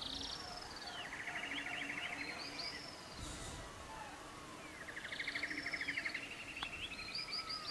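Songbird singing: the same phrase comes twice, each a rapid trill with high, sweeping whistled notes, about four seconds apart.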